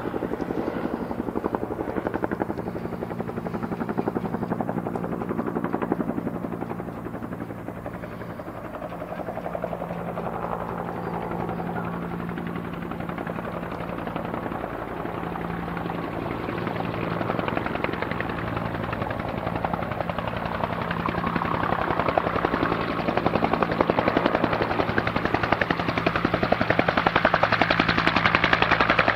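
Bell 204B helicopter flying low on its landing approach: the steady, rapid beat of its two-bladed main rotor over the steady hum of its Lycoming T53 turboshaft, growing louder over the last several seconds.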